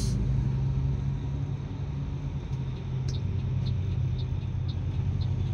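Mercedes-Benz coach heard from inside the cabin while driving: a steady low engine drone with road rumble. From about halfway through there is a faint tick about twice a second.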